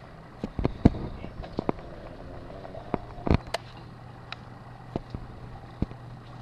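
A dozen or so irregular short knocks and clicks over a steady low hum. The loudest knocks come just under a second in and about three seconds in.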